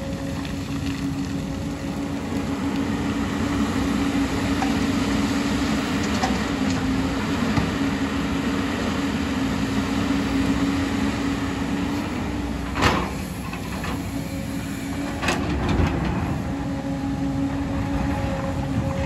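JCB crawler excavator's diesel engine running steadily with a low drone as it works. About two-thirds of the way through come two sharp knocks a couple of seconds apart.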